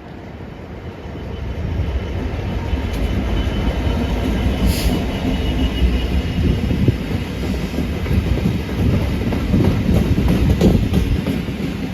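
Freight train passing: a heavy low rumble that builds over the first two seconds and then holds, with wheels knocking and clattering over the rail joints.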